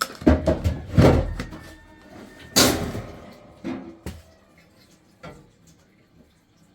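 A run of knocks and clattering thuds, the loudest a sharp bang about two and a half seconds in, then a few weaker knocks before it goes quiet, typical of a door and household things being handled.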